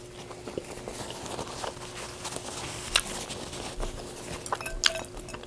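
A person chewing a mouthful of carne asada fries with the mouth closed: soft, irregular wet clicks and smacks over a faint steady hum.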